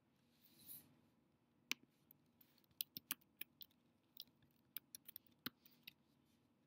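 Computer keyboard keystrokes: an irregular run of sharp, quiet clicks as a short command is typed and entered, with a soft brief rustle under a second in.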